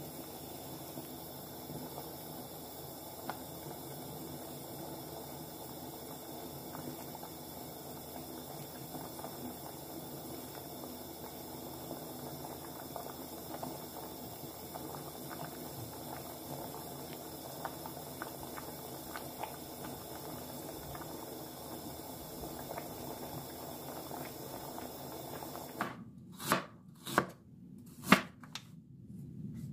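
A stainless steel pot of milky liquid boiling on a gas stove, a steady bubbling hiss with faint scattered pops. Near the end, a kitchen knife slices ginger on a wooden cutting board: about five separate sharp knocks.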